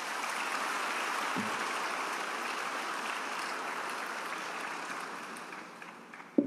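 Large audience applauding, a dense steady clatter of clapping that fades away over the last couple of seconds. A single sharp thump sounds just before the end.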